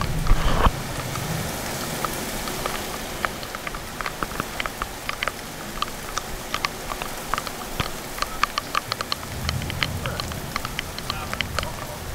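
Heavy rain falling steadily, with many sharp ticks of drops striking close to the microphone. There is a brief loud knock at the start as the phone is handled, and a low rumble swells about nine seconds in.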